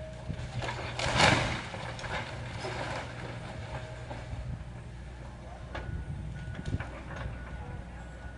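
Heavy demolition machine's engine running steadily, with a loud crash of breaking house debris about a second in and scattered knocks and clatter after it.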